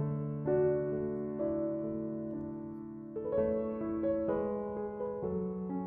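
Slow background piano music, notes and chords struck every second or so and left to ring.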